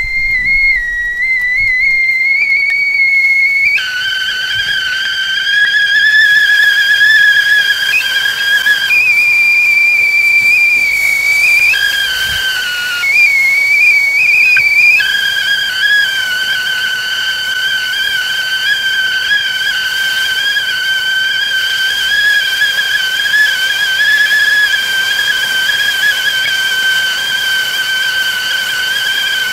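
Tea kettle whistling at the boil: a shrill, steady whistle over a light steam hiss. The pitch flips between a higher and a lower note several times in the first fifteen seconds, then holds the lower note.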